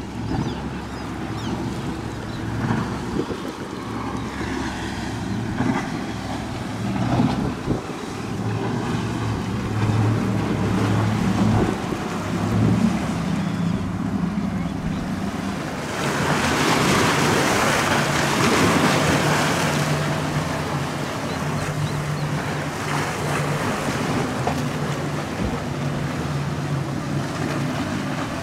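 Outboard engines of center console boats running past at speed, a steady drone that shifts in pitch, with wind on the microphone. About sixteen seconds in a louder rushing noise swells for a few seconds as waves and spray break around a hull.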